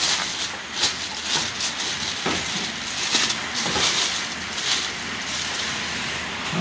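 Plastic wrapping on a split air conditioner's pipe bundle crinkling and rustling as hands squeeze and handle it, in repeated swishes with a few small clicks.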